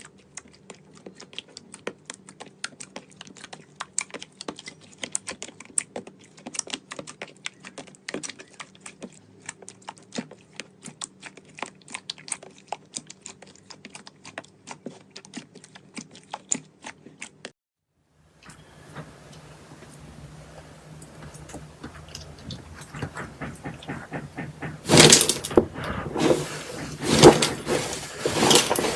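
Slime being squeezed and poked by hand: a dense run of small crackling clicks and pops, then after a brief break, louder squishing and crunching near the end.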